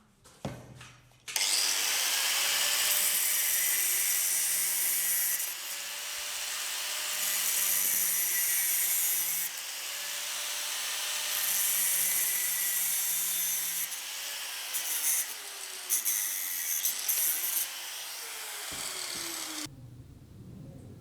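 A power tool abrading wood, a loud rasping noise in long passes of a few seconds each over a faint steady motor hum. Near the end it breaks into a few short scrapes and then stops.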